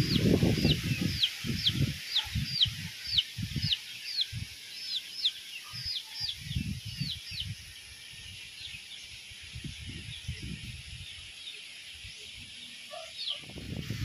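Strong wind buffeting the microphone in irregular gusts for the first half. Under it, a bird gives a quick series of short, high, descending chirps, about two a second, which grow faint in the second half.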